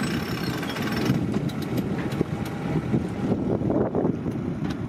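Wind buffeting the microphone on a sailboat under way: a low, ragged, uneven rumble, with a few faint clicks scattered through it.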